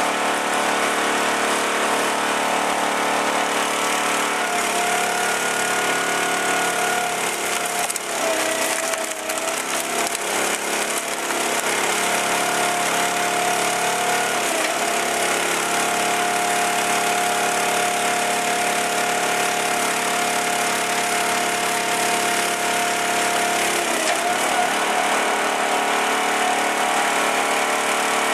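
Homemade firewood processor running: a steady engine and hydraulic pump whine, with wood cracking and splintering as the hydraulic ram forces log sections through the splitting wedge. The whine dips briefly in pitch about a third of the way in, halfway and near the end.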